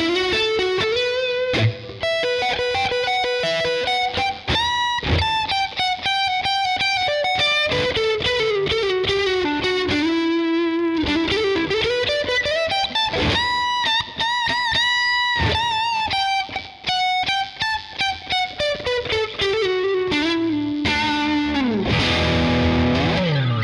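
Yamaha Pacifica 112V electric guitar on its neck single-coil pickup through a distorted tone, playing a lead solo: held single notes with bends and vibrato between quick runs, and a long slide down in pitch near the end.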